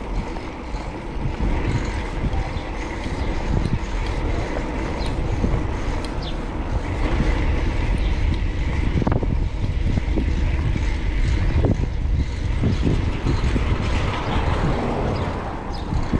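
Wind rushing over the microphone of a cyclist riding through city streets, mixed with the steady noise of passing traffic.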